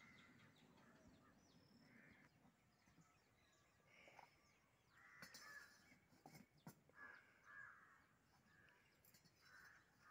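Faint crows cawing repeatedly, with a few sharp knocks about halfway through.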